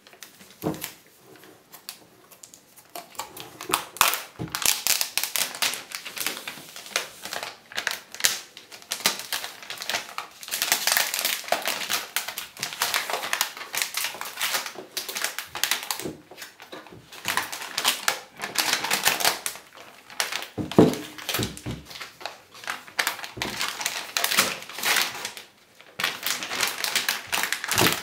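Thin clear plastic protective film crinkling and crackling as it is peeled and pulled off a smart display's screen. It comes as dense, irregular bursts of crackle with short pauses, starting a couple of seconds in.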